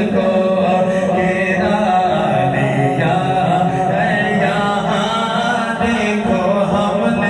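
A man's voice singing an Urdu devotional naat through a microphone, unaccompanied, in a slow chant-like melody, with a steady low drone underneath.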